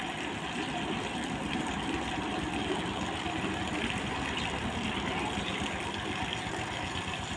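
Water from a hose spraying steadily onto a heap of sand, cement and brick chips being wetted for concrete, over a steady low mechanical hum.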